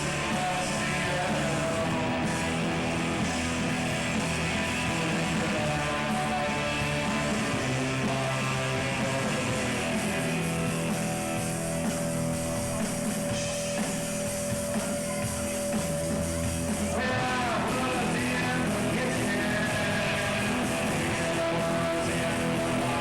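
Rock band playing live: electric guitars over bass and drums, loud and continuous, with a note held for several seconds in the middle of the passage and then bent in pitch.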